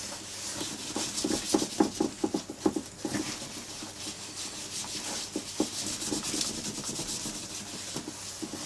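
Gloved hand rubbing cream over the dry leather of an old briefcase, a run of quick repeated friction strokes with a light hiss, most frequent in the first few seconds.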